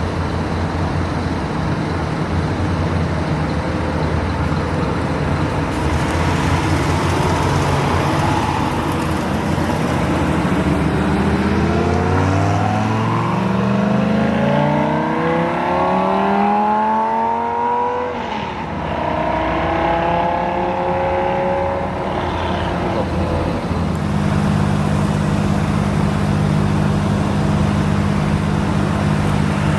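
A sports car's engine running steadily, then accelerating hard with its pitch climbing, a gear change about halfway through and a second, shorter climb as it pulls away. In the last few seconds another car's engine hums steadily at low revs.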